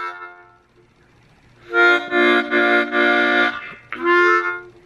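Seydel Big Six small blues harmonica played solo in short phrases, demonstrating blues bends. A note tails off at the start, a long held chord comes in about two seconds in, and a shorter one follows near the end.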